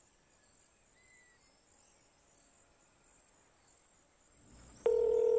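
Crickets trilling faintly in one steady high tone. Near the end a loud, steady electronic tone starts abruptly and holds.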